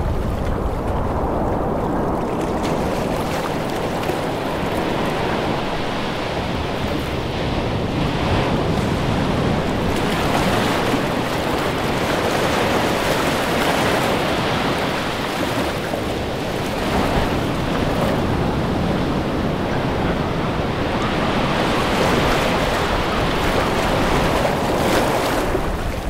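Ocean surf: waves breaking and washing onto a beach, the noise swelling louder several times as sets come in, with wind rumbling on the microphone.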